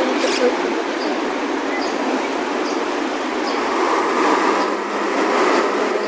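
Steady, loud rumble of passing vehicle traffic, with faint short high chirps about once a second over it.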